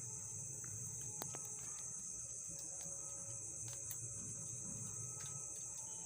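Steady, high-pitched chirring of crickets in the background, with a low hum and a few faint clicks.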